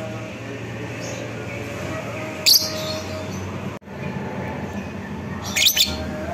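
Lovebird giving two short, shrill calls about three seconds apart over a steady low background hum.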